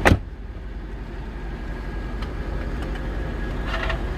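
A car door slams shut, the loudest sound here, then a motor vehicle's engine runs steadily with a low, even sound.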